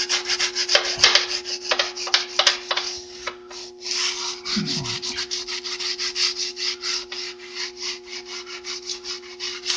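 Scotch-Brite scouring pad, clamped in a battery charger's clamp, scrubbing a wet, rusty steel truck frame in quick rhythmic strokes, about five a second, as the rust wipes off under vinegar-and-salt electrolysis. A steady low hum runs underneath.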